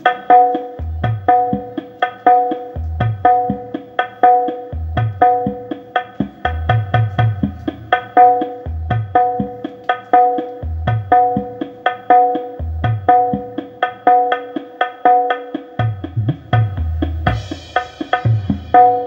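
Percussion-heavy music with a fast run of drum hits, repeated pitched notes and deep bass thumps, played loud through a bare 15-inch RCF LF15X400 replica woofer (4-inch voice coil). It is driven from a phone straight into a power amplifier, with no mixer, equaliser or crossover.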